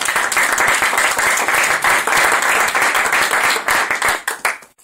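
Audience applauding, thinning into a few scattered claps near the end.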